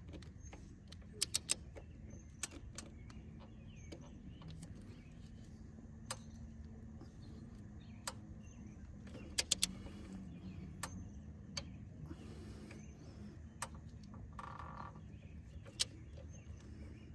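Torque wrench being worked on a motorcycle frame-slider bolt: scattered sharp metallic clicks, single and in quick pairs and threes, over a faint low hum.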